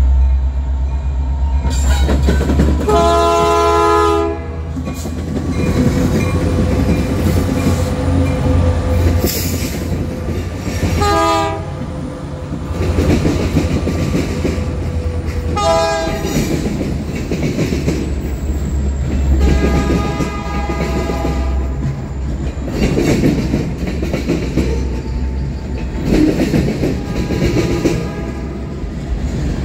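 BNSF freight train's diesel locomotives passing close by, sounding the air horn in a long blast about 2 to 4 seconds in and two short blasts near 11 and 16 seconds, a grade-crossing warning. The engines rumble steadily, then freight cars roll by with wheels clacking over the rail joints.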